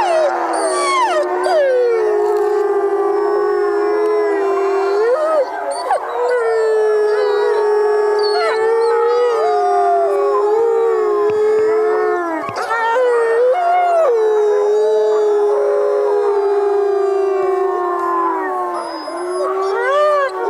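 Several voices howling at once: long, drawn-out, overlapping howls that slide up and down in pitch, with fresh howls rising in now and then.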